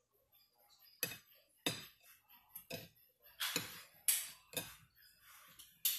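Eating sounds over a plate of crispy fried zucchini and squash chips: an irregular run of about seven sharp crunches and clicks.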